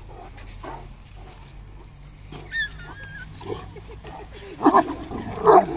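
A Great Dane grunting and growling as it plays with a cow, with two loud, short calls near the end.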